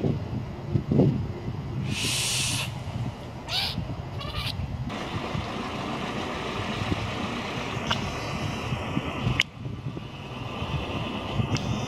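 Outdoor background rumble, like distant traffic, with a short hiss about two seconds in, a few brief calls about a second later, and a sharp click near the end.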